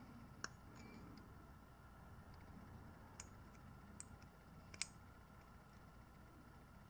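Faint, sharp metallic clicks, about four spread over several seconds with the last the loudest: a wire circlip and screwdriver tip clicking against a piston as the wrist pin clip is worked into its groove.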